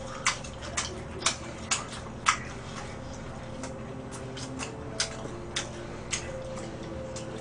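Close-up chewing of a mouthful of Chinese takeout, wet mouth clicks about twice a second that thin out after a few seconds, over a faint steady hum.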